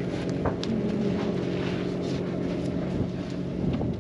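An engine running steadily, a constant low hum, with a few faint clicks over it.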